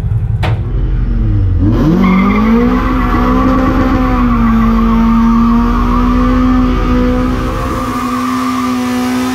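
Toyota AE86 Corolla's 3S-GE four-cylinder revving up sharply about a second and a half in and held at high revs in a burnout, its rear tyre spinning and squealing on the flatbed's wooden deck. A single sharp click comes just before the rev-up.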